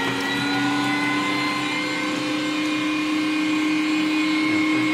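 Bosch ProPower electric meat grinder motor running with a steady hum while it minces strips of meat pushed into the feed tube.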